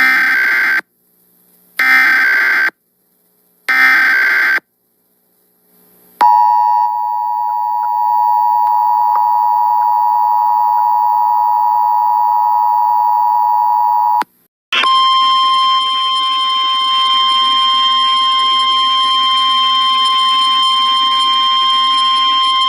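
Emergency Alert System signal for a flash flood warning. It opens with three short screeching digital header bursts about two seconds apart. After a brief pause comes the steady two-tone attention signal for about eight seconds, and then, after a short gap, a single steady alert tone, the weather-radio warning tone.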